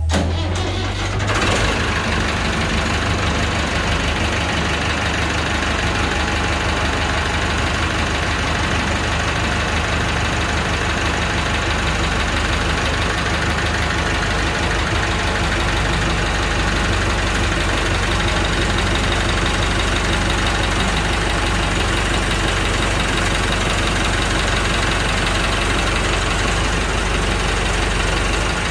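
Massey Ferguson 188 tractor's four-cylinder diesel engine running steadily with a diesel clatter. It comes up sharply in level right at the start, then holds an even run.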